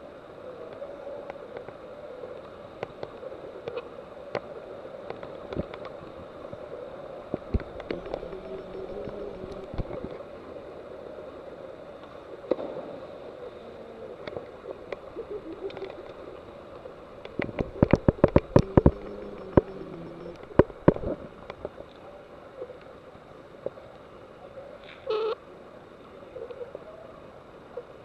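Water washing in a sea-cave pool, a steady wash of sound with scattered sharp clicks and knocks. A burst of louder knocks comes about two-thirds of the way in.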